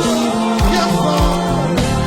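Live gospel worship music: a band playing held chords and a moving bass line, with voices singing over it.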